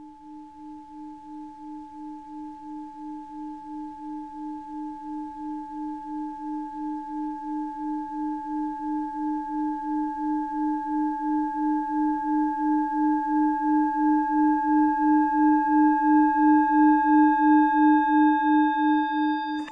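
Singing bowl held ringing by rimming: a single sustained tone with a steady wobbling pulse of about two to three beats a second and fainter higher overtones, swelling gradually louder.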